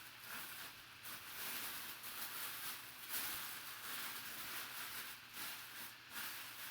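Faint, irregular rustling of handling noise over a steady low electrical hum.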